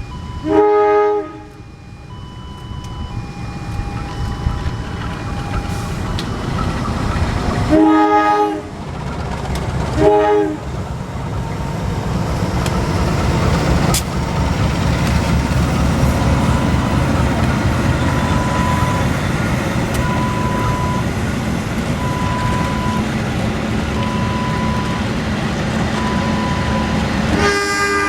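Diesel locomotive horn sounding four blasts: one right at the start, two about two seconds apart in the middle, and one at the very end, as a train approaches and runs past with a loud steady rumble of engine and wheels on rail. Faint short electronic beeps repeat in the background.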